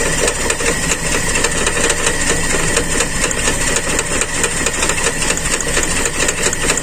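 Toyota Kijang carbureted four-cylinder engine idling rough with a misfire on cylinder number one, with a fast, even ticking over the running. The owner traces the incomplete combustion to a broken vacuum hose on the intake manifold.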